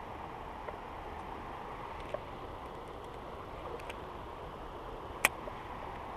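Steady rush of running creek water, with a few faint ticks and one sharp click about five seconds in, the loudest sound in the stretch.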